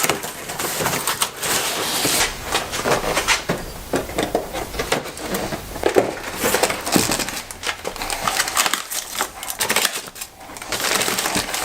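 Hands handling a Black Series Force FX lightsaber and loose material on a work surface: irregular rustling and crinkling with many small clicks and knocks.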